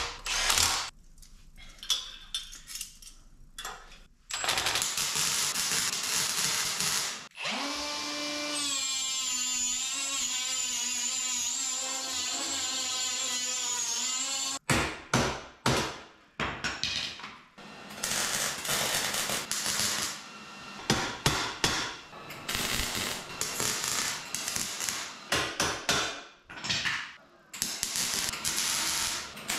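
Hand power tools and a welder working on steel exhaust tubing. A grinder runs up with a rising whine and holds steady for about seven seconds before cutting off sharply. After that comes a long run of short, irregular bursts of arc welding, tack-welding the exhaust pipe.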